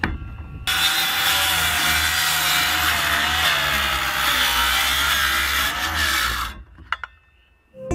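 Circular saw cutting across the end of a weathered 2x6 board. The saw starts abruptly about a second in and runs through the cut for about six seconds, its motor pitch wavering slightly under load, then stops, followed by a couple of brief clicks.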